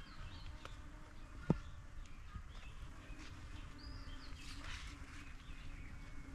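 Small birds chirping and whistling in short scattered calls over a steady low outdoor rumble, with one brief sharp falling sound about a second and a half in.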